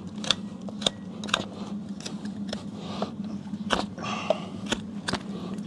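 Hoof knife paring the sole and frog of a horse's front hoof: short sharp cutting strokes, about two a second, at an uneven pace.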